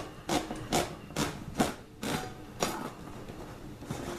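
Hand-held crank can opener cutting around the lid of a metal food can, giving a regular click-and-scrape with each turn of the key, about two a second. The clicks stop about three seconds in.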